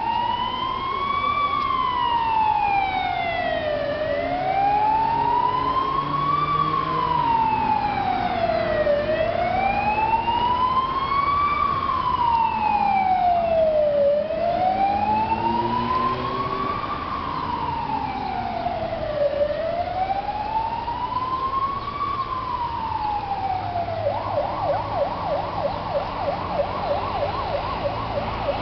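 Emergency vehicle siren in a slow wail, rising and falling about every five seconds. Near the end it switches to a fast yelp.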